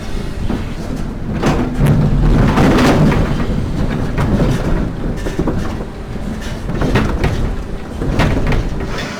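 Doosan 500LCV excavator's diesel engine working under load, with bursts of clanking and rattling from the machine at work, loudest about two to three seconds in and again briefly near the end.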